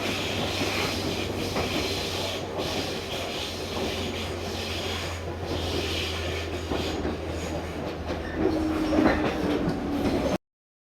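Tobu local electric train running on the rails: a steady low hum with wheel and track noise. Near the end a steadier, higher tone comes in, then the sound cuts off suddenly.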